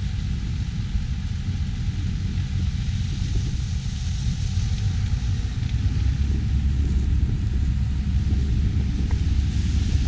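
Farm harvest machinery running in a corn field: a steady low rumble with a hiss over it, growing a little louder about six seconds in.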